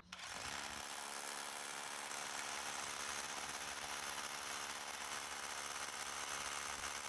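DeWalt SDS rotary hammer drilling a 12 mm hole into concrete with a Bosch Expert hammer bit, a steady hammering drone with a hiss on top.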